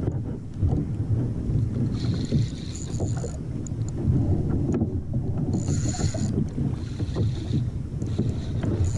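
Wind buffeting the microphone and water slapping against a plastic fishing kayak while a hooked fish is played. A spinning reel whirrs in a couple of short spells.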